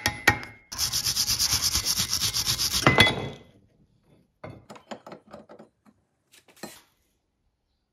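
Quick back-and-forth abrasive rubbing on a small steel knife blade for about two and a half seconds, ending in a sharp ringing metal clink, followed by a few light scrapes and taps.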